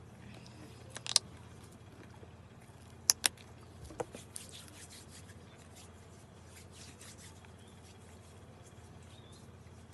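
Sounds of eating and handling food: a few sharp clicks and taps, then soft crackling and rustling, over a steady low hum.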